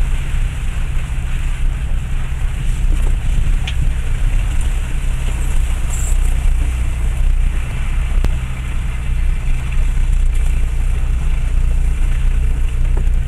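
Cabin noise of a Land Rover Freelander 1 TD4 creeping along a rutted green lane off road: the steady low rumble of its diesel engine and drivetrain, with a few light clicks and knocks from the body over the bumps.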